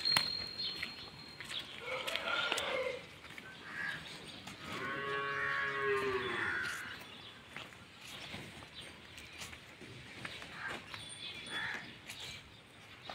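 Gir cross cow mooing once, a long call of about two seconds that rises and falls in pitch, about five seconds in.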